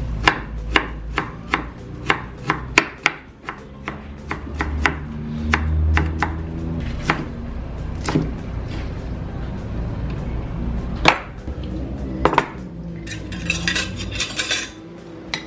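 Chef's knife chopping red onion on a wooden cutting board, sharp knocks about two a second for the first half, then sparser. Near the end, metal spoons clink together.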